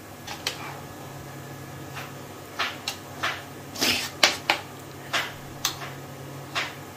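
A steel spoon tapping and scraping against a metal baking tray while it spreads and smooths a thick, soft sweet mixture. About a dozen short clicks come at irregular intervals, the loudest in the middle, over a faint steady hum.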